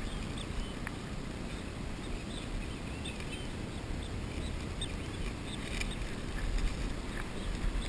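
Wind rumbling steadily on the microphone, with faint high chirping in the background, thickest a few seconds in.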